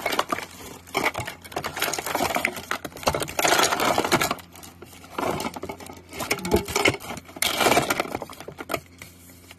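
Hands rummaging through a box of small plastic toys and paper. The pieces rattle and clink against each other, with some paper rustling, in several spells of handling.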